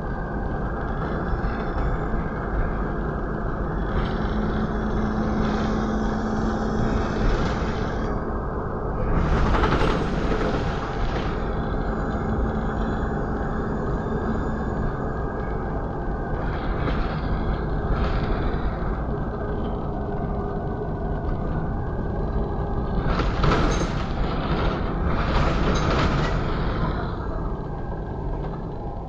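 Inside a Volvo B7RLE single-deck bus on the move: the rear-mounted six-cylinder diesel engine and road noise run steadily through the cabin. A steady hum sounds for a while about four seconds in, and there are two louder bursts of hiss, one around ten seconds in and one near the end.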